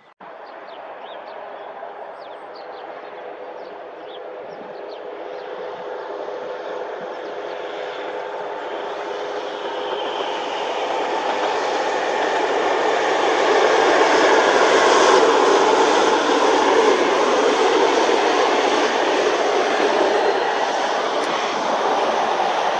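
Integral S5D95 diesel multiple unit approaching and passing, its engine hum and wheel-on-rail noise growing steadily louder and loudest about two-thirds of the way through.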